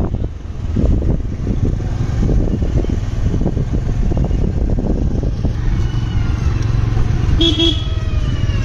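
A road vehicle on the move: a steady low engine hum under rough, gusting wind noise on the microphone. A few faint high, wavering tones come in over the last few seconds.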